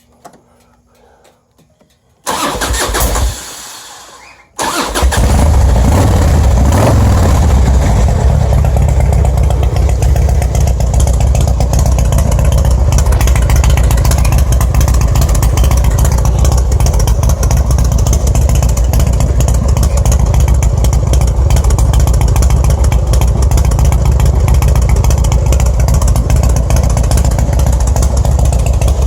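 Harley-Davidson Twin Cam 88 V-twin fitted with Andrews TW21 cams being started. The starter cranks for about two seconds, the engine catches and revs briefly, then settles into a loud, loping idle through modest mufflers, the lope coming from the new cams.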